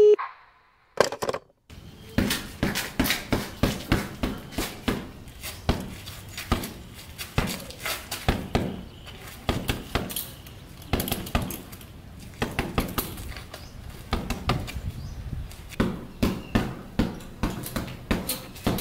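Wrapped fists striking a hanging heavy punching bag in quick, irregular blows, a few a second, in flurries with short pauses between them.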